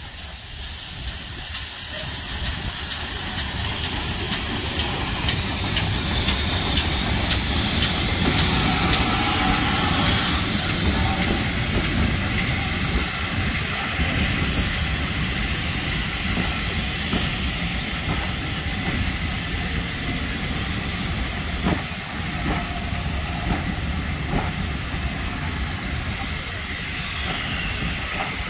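Two steam locomotives double-heading a passenger train pass close by, hissing steam, growing louder over the first few seconds and loudest about eight to ten seconds in. Then the coaches roll past with the wheels clicking over the rail joints.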